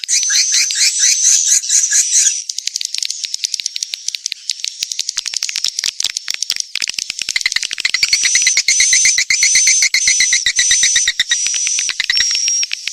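Swiftlet-house lure recording of edible-nest swiftlet calls: fast runs of high chirps and clicks. The fuller chirping thins to sparser clicks about two seconds in and comes back about eight seconds in.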